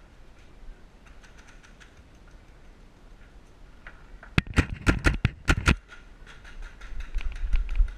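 A paintball marker firing a quick string of about six sharp shots a little over halfway through, with softer scattered ticks and light thumps before and after.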